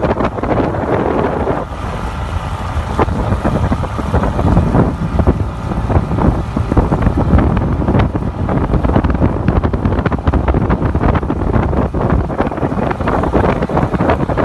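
Wind buffeting a microphone over the low, steady rumble of a motorboat moving along with the kayaks.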